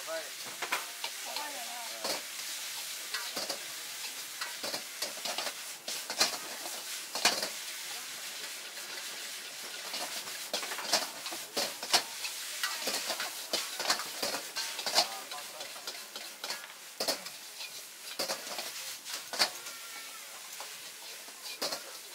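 Noodles sizzling in a hot wok as they are stir-fried with long wooden chopsticks, which scrape and knock sharply against the wok at irregular intervals of a second or two.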